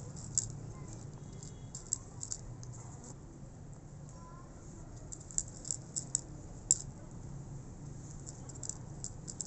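A cat eating dry kibble from a shallow plate: irregular crisp crunches and clicks as the pellets are chewed and nudged, with a few louder ones about five to seven seconds in.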